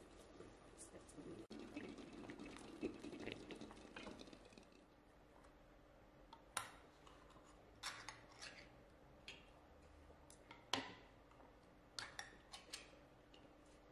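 Water running or pouring for about four seconds, then scattered light clinks and taps of kitchenware.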